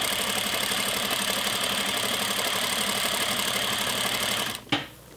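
Industrial straight-stitch sewing machine running steadily at speed, stitching a long seam. It stops near the end, followed by a single knock.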